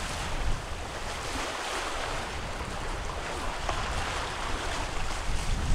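Wind buffeting the microphone over the steady rush of open-ocean water around a Leopard 45 sailing catamaran under way.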